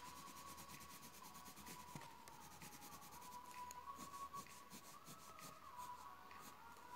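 Faint scratching of a blue Faber-Castell coloured pencil shading on paper in quick repeated back-and-forth strokes.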